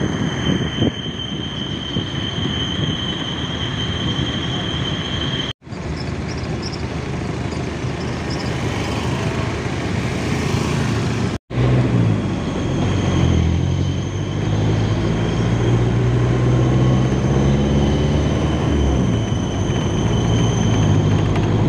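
Engine and road noise heard from inside a moving vehicle. A steady high whine runs over the noise in the first few seconds. In the second half the engine's low drone rises and falls in pitch as the vehicle speeds up and slows. The sound cuts out briefly twice.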